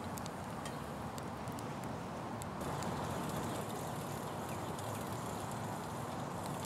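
Small wood fire burning in a folding metal twig stove under a pot of water, with light crackling clicks in the first couple of seconds over a steady hiss.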